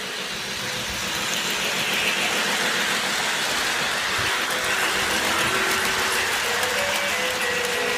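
Battery-powered toy train running along its plastic track, a steady whirring rumble of motor and wheels that grows louder over the first second or two and then holds. Faint held musical notes come in over it in the second half.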